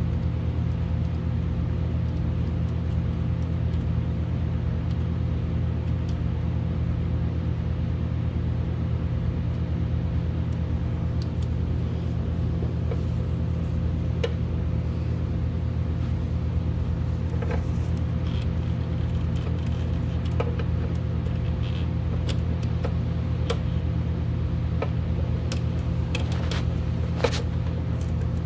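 A steady, even low hum, with light clicks and taps in the second half.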